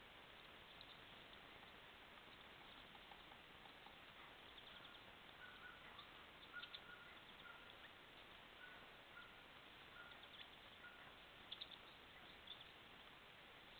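Near silence: a trail camera's steady microphone hiss, with a few soft ticks and, through the middle, a faint run of short repeated notes like a bird calling.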